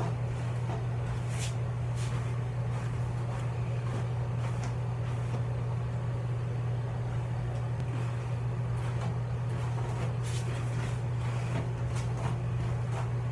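Hairbrush strokes through curly hair, a few short soft scratchy swishes, over a steady low hum.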